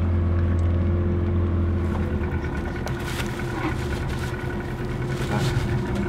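A small fishing boat's engine runs steadily while under way, with a deep hum that eases off about two seconds in. A few light knocks come later.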